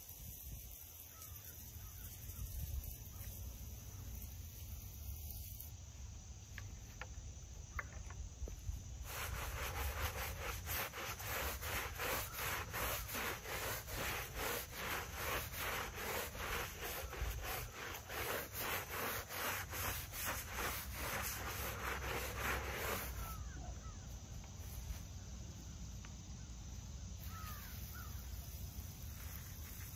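A stiff brush scrubbing a flat headstone: harsh rasping strokes, about two a second, starting about nine seconds in and stopping suddenly some fourteen seconds later. A few faint bird chirps before and after.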